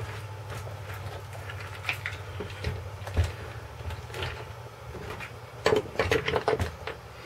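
Clicks and knocks of an Axial Wraith RC truck being handled and turned over on a workbench, with a cluster of sharper knocks about six seconds in, over a steady low hum.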